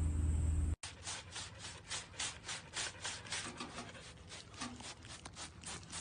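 Dogs panting hard through open mouths: short breaths in a quick even rhythm, about three or four a second. Before that, a steady low hum cuts off abruptly under a second in.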